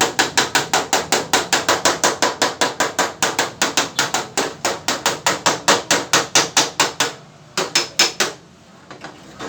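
Rapid, even hammer blows on sheet metal, about five or six a second, with a few more strikes after a short pause near the end: body-shop hammering on a car fender.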